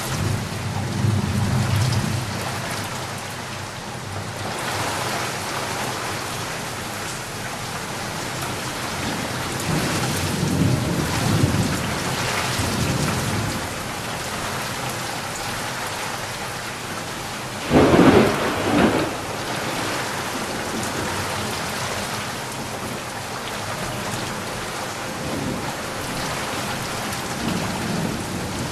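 Steady heavy rain with low rolling thunder that swells and fades a few times; the loudest moment is a sharp thunderclap about two-thirds of the way through.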